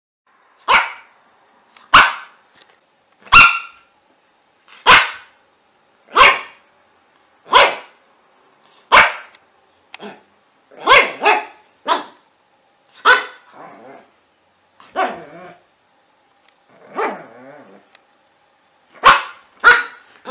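A dog barking: sharp single barks about every second and a half, turning more irregular with quick double barks later on. A few barks trail off into a lower, drawn-out growling sound, the longest about three-quarters of the way through.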